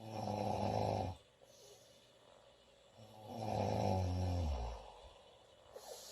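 A woman snoring loudly in her sleep: two long, low snores about three seconds apart, the second dropping in pitch as it ends, with quieter breathing between them.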